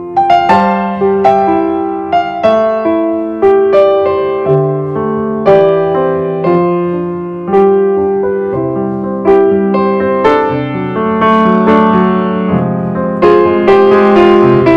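Background piano music: a slow melody of single struck notes and chords, each ringing and fading before the next.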